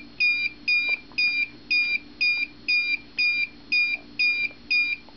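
High-temperature alarm of a homemade wood-stove temperature monitor, sounding as short, even, high-pitched beeps about twice a second: the thermocouple probe's reading has passed the 350-degree high-temperature setpoint.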